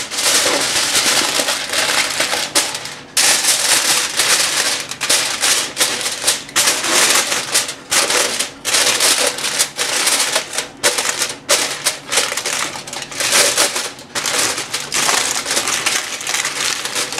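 Aluminium foil crinkling and crackling as it is pressed and crimped by hand around the rim of a cooking pot. It comes in irregular rustles with short breaks between them.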